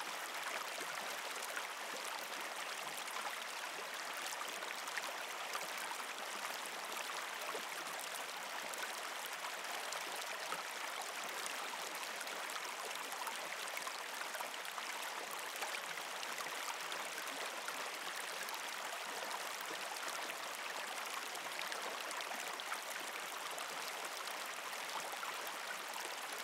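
Steady running water, like a small stream, as an even hiss with no breaks or pitched tones.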